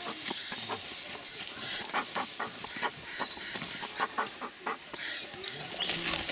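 Two small dogs play-wrestling on dry fallen leaves: repeated rustling and scuffling in the leaf litter, with a few short dog noises.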